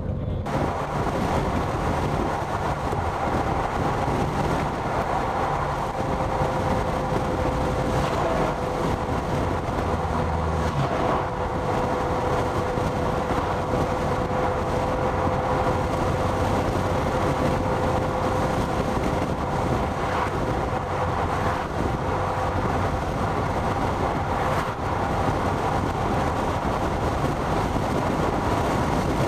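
Steady vehicle noise while driving: road and engine rumble with a held drone from about six seconds in.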